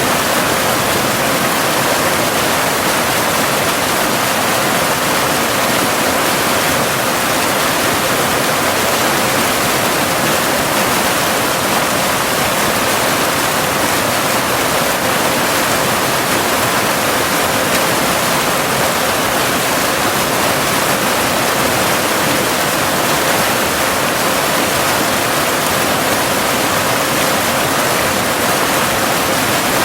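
Waterfall cascading in a steady, even rush of water, with a faint steady 528 Hz binaural tone beneath it.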